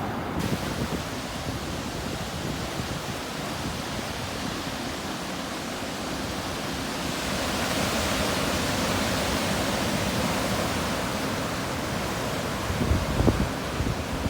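Sea surf washing on the shore: a steady hiss of water noise that swells about halfway through. Wind buffets the microphone with low thumps near the end.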